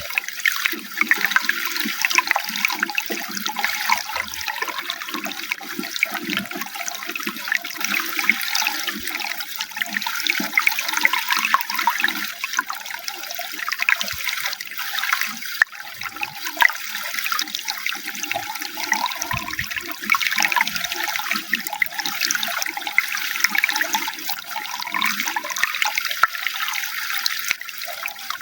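Running water flowing steadily, with a continuous splashing hiss and gurgling.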